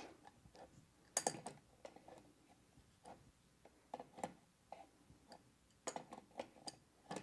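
Wrench tightening a pump's cable gland nut: faint, irregular light clicks as the wrench is worked on the nut, the loudest about a second in and near the end.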